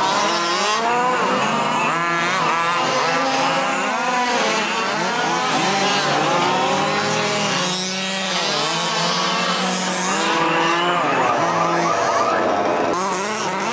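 Several small two-stroke petrol engines of fifth-scale RC dirt mod race cars running together, each revving up and down so their pitches overlap and keep rising and falling as the cars lap.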